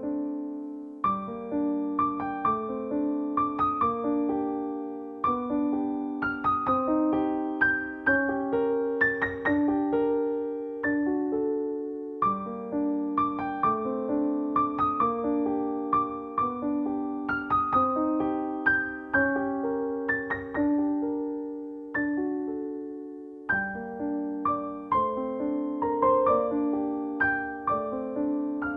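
Background music: a gentle piano melody over sustained lower notes.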